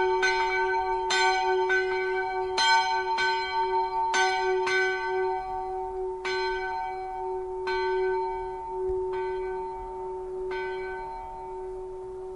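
Church bells ringing, the strokes at first about two a second, then coming further apart and fainter as the ringing dies away, with a steady hum of the bells carrying under them.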